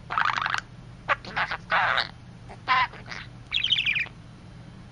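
White budgerigar chattering: a string of short, scratchy warbling squawks and chirps in about half a dozen quick bursts.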